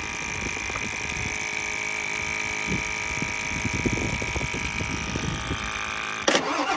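A steady mechanical hum with a high whine. About six seconds in, a sudden louder noise breaks in as the Ford 7.3L diesel is cranked over on a single lithium iron phosphate battery.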